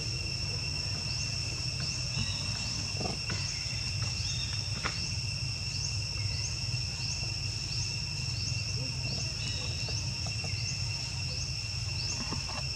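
Insects trilling steadily in high, unbroken tones, with a short rising chirp repeating about twice a second, over a low steady rumble.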